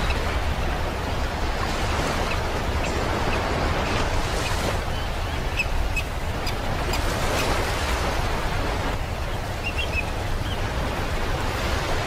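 Ocean surf washing onto a beach: a steady, continuous rush that swells and eases gently. A few faint, very short, high bird calls sound over it, about halfway through and again near the end.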